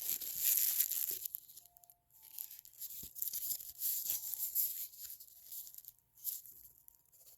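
Paper and cardboard packaging rustling and crinkling as it is handled, busy for about the first second, then lighter, intermittent rustles.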